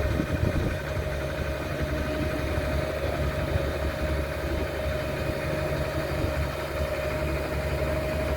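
An engine idling steadily: a constant low rumble with one steady mid-pitched tone running over it.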